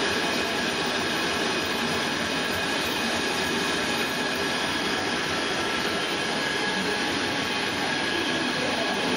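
ProtoTrak 1840 CNC lathe turning a large metal workpiece, the tool on a long tool-holder extension cutting and throwing off stringy chips. A steady machining noise with faint steady high tones.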